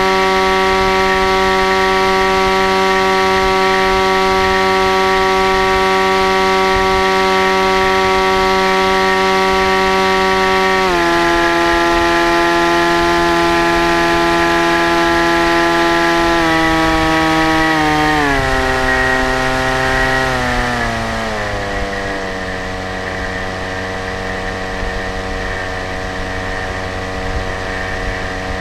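Motor and propeller of a foam RC plane whining at a steady pitch, heard up close from on board. The pitch steps down about a third of the way in and again a little past halfway, then glides lower and gets quieter as the motor throttles back.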